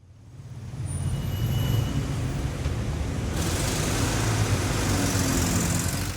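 City street traffic: engines rumbling low with a steady wash of road noise, fading in over the first second. A strong high hiss cuts in suddenly about three and a half seconds in and carries on over the rumble.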